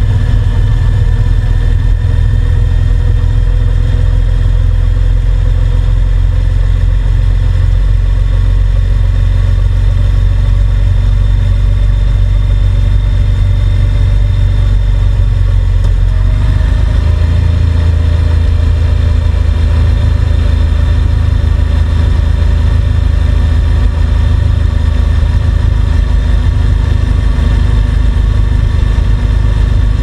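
Honda NC750X's parallel-twin engine running steadily at road speed, recorded from on the bike. About halfway through, the engine note steps up in pitch and holds there.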